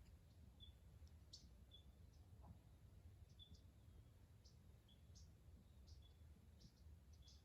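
Near silence, with faint short high chirps repeating about once a second and a few faint ticks.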